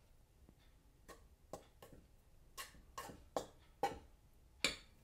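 Fingers stirring dry flour mix in a stainless steel bowl: a quiet series of short, soft scrapes and rustles, about two a second.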